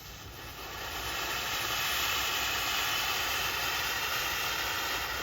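Firework fountain spraying sparks with a steady rushing hiss, swelling over the first second or so and then holding.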